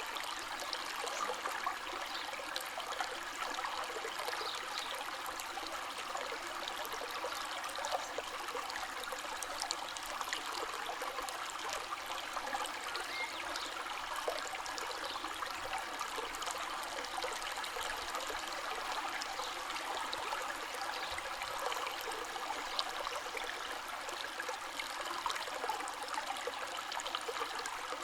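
A river or stream flowing steadily, with small splashes and trickles over the steady rush.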